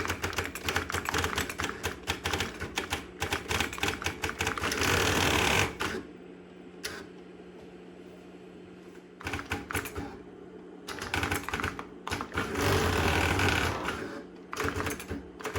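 Thimble-type impact printer terminal printing: rapid clattering strikes of the print thimble, each run ending in a whirr of about a second as the carriage returns, twice. It goes quieter between about 6 and 9 seconds in, with a steady low hum underneath.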